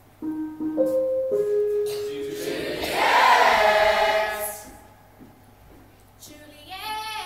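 Group of young voices singing long held notes that step between pitches, building to a loud full chord about three seconds in and fading away by five seconds. A new sung note starts near the end.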